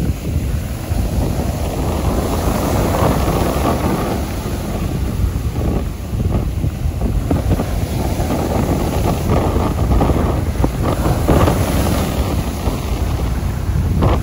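High waves breaking and washing up on a sea beach, with strong wind buffeting the microphone into a continuous rumbling noise.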